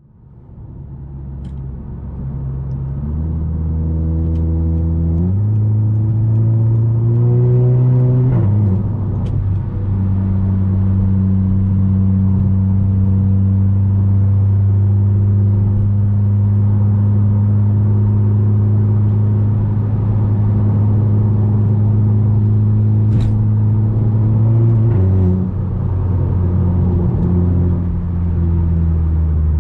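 Audi A3 8P's 2.0 TFSI turbocharged four-cylinder with an aftermarket 2.5-inch downpipe and catback exhaust, pulling in gear with the engine note rising over the first eight seconds. The note then drops at an upshift and settles into a steady drone at cruise, with another drop in pitch at a second shift near the end. The sound fades up over the first few seconds.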